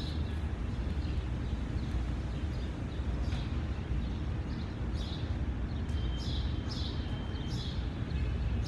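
Outdoor background: a steady low rumble, with a quick run of short, high bird chirps in the second half.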